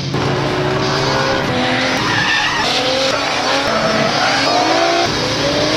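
Drift cars at full throttle, engines revving high with tyres screeching as they slide. The engine notes climb and drop back several times as the drivers work the throttle.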